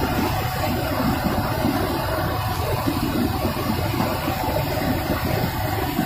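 Waterfall in spate, heavy muddy water crashing onto rocks: a loud, steady, deep rush of falling water.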